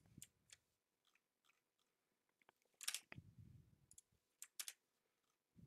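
Near silence, broken by a few faint, sharp clicks of a computer mouse and a soft low thump about three seconds in.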